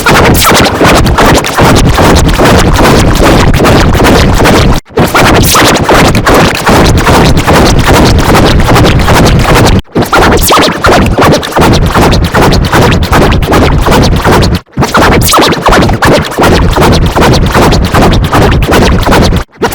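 Loud, heavily distorted music that stays near full level, broken by a short silent gap about every five seconds.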